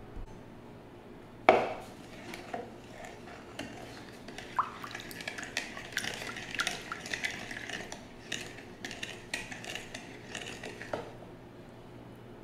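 Wooden spoon stirring a thin vinegar dressing in a bowl, clicking and scraping against the bowl's hard lining, with a sharp knock about a second and a half in. The stirring stops about eleven seconds in.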